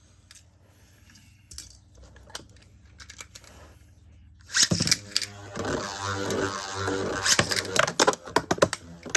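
A few faint handling clicks, then about four and a half seconds in, Metal Fight Beyblade tops are launched with ripcord launchers into a plastic stadium. A loud whirring rattle follows, with many sharp clicks of the metal tops striking each other and the stadium wall.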